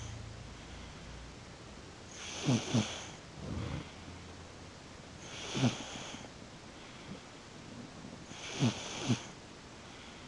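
Snoring of a small, young sleeper: about every three seconds a breath brings a short snore that falls in pitch, with a hiss of air, sometimes two in quick succession.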